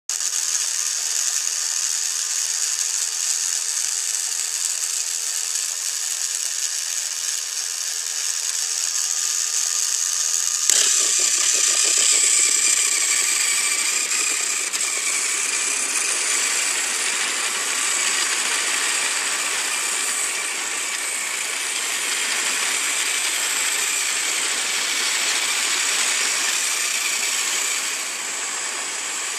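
Battery-powered TrackMaster Gordon toy train engine's small electric motor whirring steadily as it hauls a long line of plastic coaches along plastic track. About ten seconds in, the sound suddenly becomes louder and rougher.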